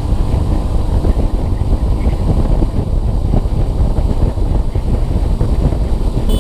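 Heavy wind buffeting on the microphone of a moving motorcycle, with the bike's engine running steadily underneath at cruising speed.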